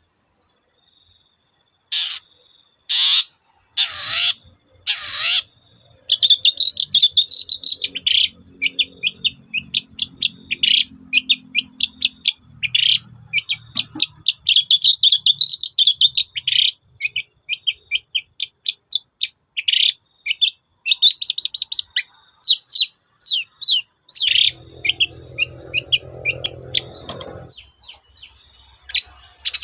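Long-tailed shrike singing. A few loud, harsh calls come first, and from about six seconds in it breaks into a rapid, unbroken run of varied chattering notes.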